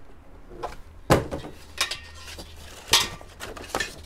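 Handling noises from unboxed workbench parts and packaging: a few sharp knocks and clicks, the loudest about a second in, over a faint low hum.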